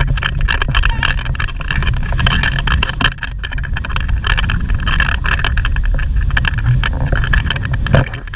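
Wind buffeting an action camera's microphone over the hiss of surf, with many sharp clicks and knocks from the camera being carried along.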